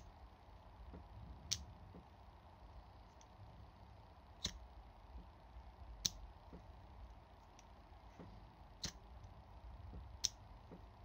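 Dunhill sports lighter being struck again and again with its thumb lever: six sharp clicks, one to three seconds apart, as the lever snaps the snuffer cap up and spins the flint wheel, lighting the wick.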